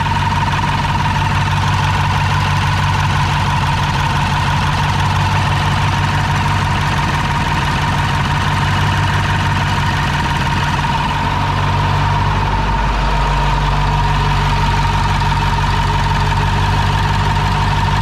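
Ford 7.3 L Powerstroke turbo-diesel V8 idling steadily with its valve covers off and rocker arms exposed, on its first run after new beehive valve springs were fitted, with a steady high whine over the engine note. It sounds pretty good: no sign of trouble from the new springs.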